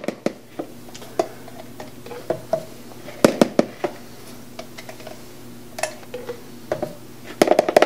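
A metal spoon scooping mayonnaise and knocking against a plastic mixing bowl: scattered clicks and taps, with a quick cluster of them near the end, over a faint steady hum.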